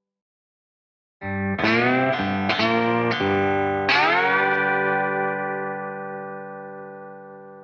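Lap steel guitar slide: after about a second of silence, a chord is struck and slid upward in a few quick steps, then one last slide up into a chord that rings on and slowly fades.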